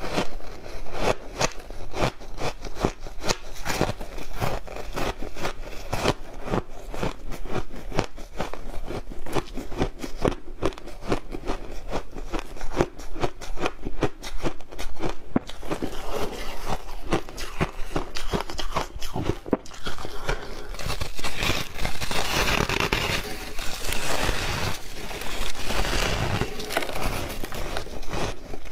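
A person biting and chewing refrozen shaved ice: a dense, continuous run of crisp crunches and crackles.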